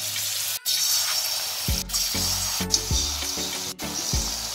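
Batter-coated cauliflower florets sizzling as they fry in hot refined oil, with a steady hiss, cut by a few very brief dropouts. Background music with low held notes comes in under it after about a second and a half.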